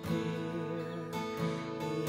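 Acoustic guitar strumming chords to accompany a gospel song, in a short break between sung lines, with a few fresh strums about a second in.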